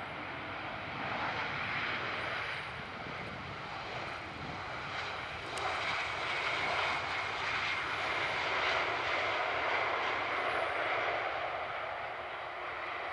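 Airbus A319 jet engines and airframe rushing during the landing rollout as the airliner passes along the runway with its spoilers raised. The noise swells about a second in, is loudest in the second half, and fades near the end as the aircraft rolls away.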